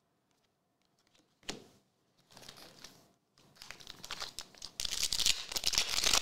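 A single soft knock, then rustling that grows into the loud crinkling and tearing of a foil wrapper as a 2023 Select AFL Legacy trading-card pack is ripped open, loudest over the last second or so.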